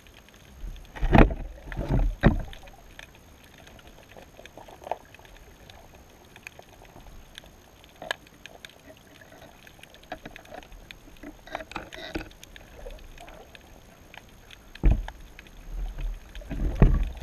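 Underwater sound at a seabed camera: scattered faint clicks and crackles, broken by heavy low rumbling thumps about a second in, twice more soon after, and again twice near the end, as water surges around the baited rig and knocks it.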